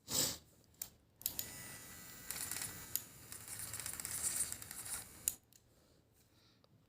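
Packaging being handled and crinkled: a sharp rustle at the start, then about four seconds of continuous crinkling and rustling that stops abruptly.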